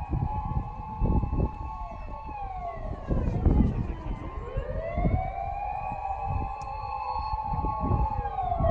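Several emergency vehicle sirens wailing together, overlapping slow rises and falls that repeat about every four to five seconds, with a steadier siren tone beneath them. Low buffeting rumble from wind on the microphone.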